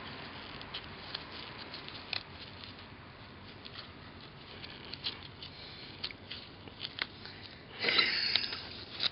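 Gloved hands handling and pressing epoxy putty onto an iron chair: faint scattered clicks and soft rubbing, with a louder rustle about eight seconds in.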